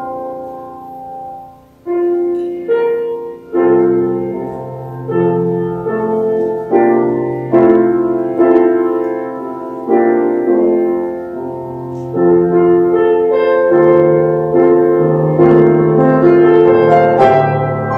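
Piano playing slow chords, each struck and left to ring and fade. It is soft for the first two seconds, then grows fuller and louder.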